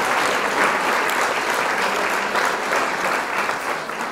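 A crowd applauding, with many hands clapping at once, fading out near the end.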